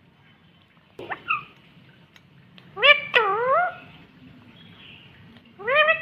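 Three short pitched animal calls: a brief rising one, then two louder calls that sweep up, dip and rise again.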